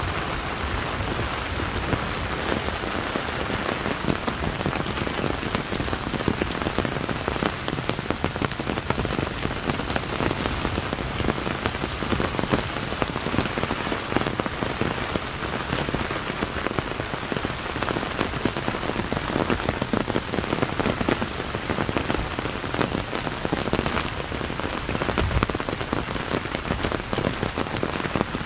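Steady rain falling, a dense, even patter of drops striking a surface.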